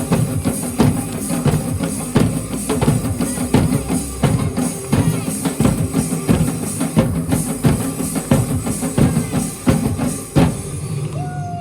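Live drum ensemble playing a fast, dense beat with deep bass drums, breaking off about ten and a half seconds in.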